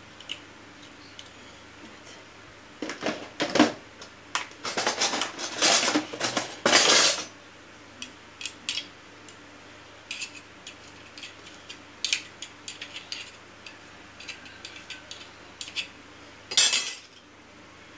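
Metal garlic press and metal spoons clinking and scraping together as crushed garlic is pressed and scraped out. A cluster of loud clinks and scrapes comes a few seconds in, then lighter scattered ticks, and one louder clatter near the end.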